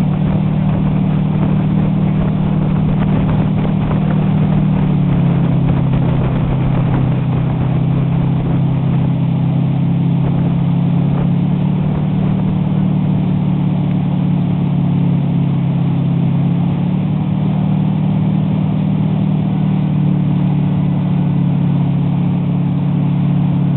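Motorboat engine running steadily at speed while towing an inner tube, its pitch shifting slightly a couple of times, over a constant rush of water and wind.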